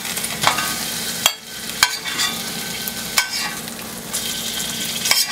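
Chicken pieces sizzling in hot olive oil in a frying pan, with several sharp clicks of a utensil against the pan as the chicken is lifted out.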